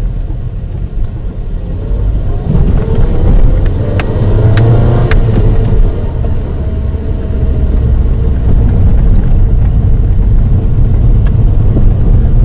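Road and engine noise of a moving Ford Focus 2, heard from inside the car, growing louder about two seconds in as another car speeds past. Two sharp clicks near the middle.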